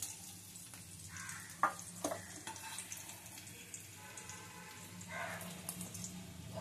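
Small fried potatoes sizzling softly in hot mustard oil in a kadai while a metal slotted spoon scoops them out. The spoon knocks sharply against the pan twice, about one and a half and two seconds in, and scrapes once near the end.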